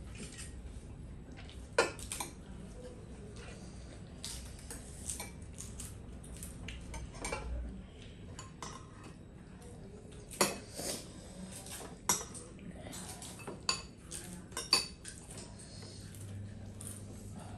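Metal spoons clinking and scraping against bowls and plates as food is served and eaten at the table: scattered light clinks, with a few sharper ones about two seconds in and again between ten and fifteen seconds in.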